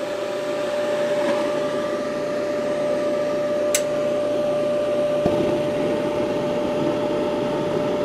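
Gas clothes dryer's blower fan running with a steady hum while its hot-surface igniter heats. About five seconds in, the gas valve opens and the burner lights, adding a low rush of flame to the fan noise.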